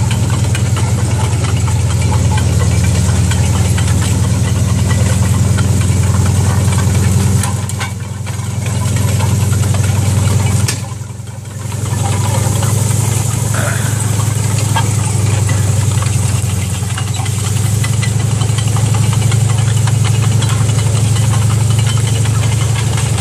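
M4 Sherman tank's engine running as the tank moves off, a loud, steady low drone with the tracks clanking. The engine eases off briefly twice, about a third of the way and halfway through.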